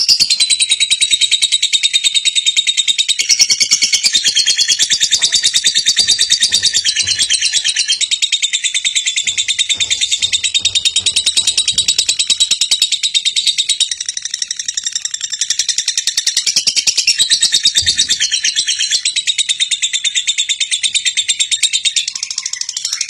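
High-pitched bird chirping, a fast continuous run of chirps.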